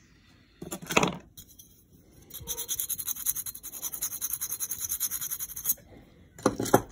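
Fast back-and-forth scraping as the end of a small brass tube is smoothed, running for about three seconds in the middle. A sharp knock comes about a second in, and another short clatter near the end.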